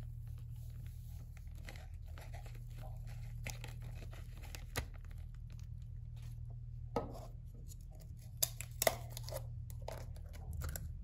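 A plastic zip-top bag crinkling and rustling as baking soda is poured from it into a small plastic bucket, followed by clicks and a few louder knocks of plastic containers being handled on a table.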